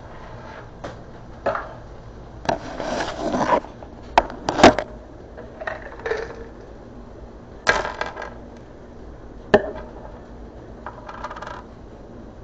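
Pills and other small hard objects clattering and tapping on a wooden tabletop. Sharp knocks and scrapes come from things being set down and moved around, with the loudest knocks about four and a half seconds in.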